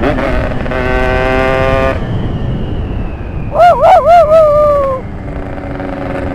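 Yamaha RX-King's ported two-stroke engine being ridden: held steady at high revs, then about three quick, loud rev blips in the middle that fall away, settling into a lower, steadier note near the end.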